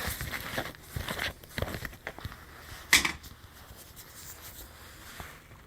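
Handling of paint-mixing containers: rustling, crinkling and small clicks, with one short, sharp tearing or scraping burst about three seconds in, then quieter handling.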